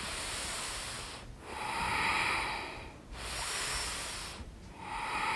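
A woman breathing deeply and audibly in and out through the mouth, two full breaths in about five seconds, while holding a yoga stretch.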